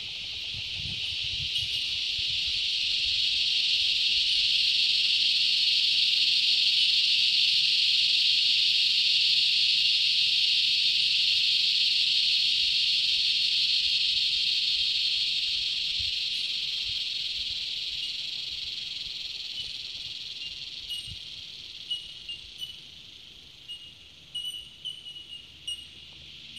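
Loud insect chorus: a dense, high, steady drone that swells over the first several seconds and then slowly fades away. A few short, high chirps come in near the end.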